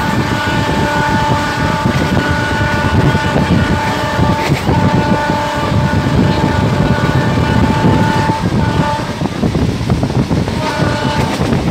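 Diesel locomotive's multi-note horn sounding a long held blast, broken briefly about four and a half seconds in and stopping about nine seconds in, then a short blast near the end. Under it runs the steady rumble and clatter of the coach's wheels on the rails, heard from an open window of the moving train.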